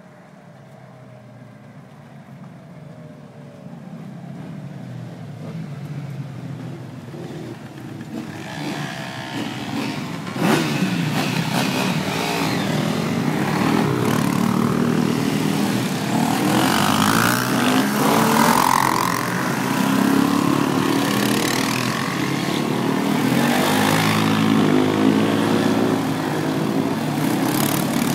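Several enduro motorcycles and quad bikes approaching, their engines growing steadily louder over about ten seconds. Then they pass close by, revving, the engine pitch rising and falling as bike after bike goes past.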